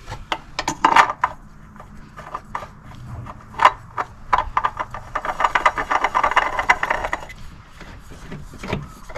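Spin-on oil filter being screwed onto the engine, with scattered knocks and rubbing of tool and filter handling and a run of rapid clicking for about two seconds midway.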